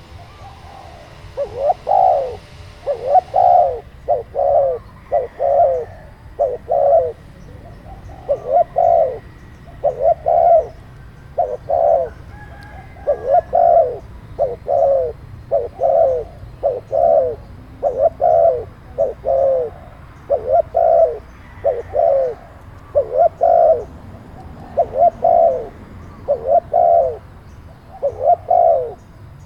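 A dove cooing over and over in a steady run of short, loud coos, about one or two a second.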